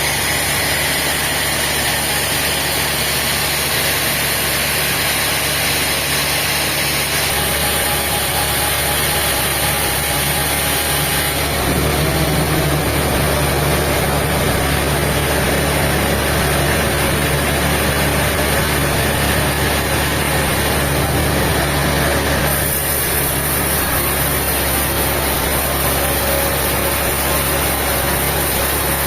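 Heavy machinery engine running steadily, with no revving. Its tone shifts abruptly about 7, 11 and 22 seconds in.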